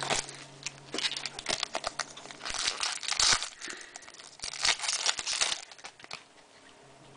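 Foil wrapper of a 2011 Topps Chrome football card pack crinkling and tearing as it is ripped open, with the cards inside being handled. The crinkling dies down about six seconds in.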